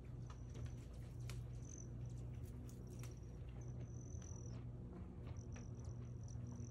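A bull moose browsing on leafy plants up close: irregular snaps, crackles and crunches of leaves being pulled off and chewed. Behind it run a steady low hum and an on-and-off high, thin trill.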